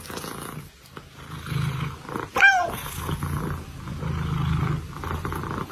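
A cat meowing once, about two and a half seconds in, amid a low, intermittent rumble.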